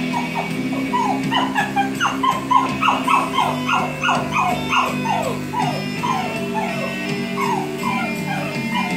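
A dog whining in a rapid string of short yelps, each falling in pitch, about three a second, over background music.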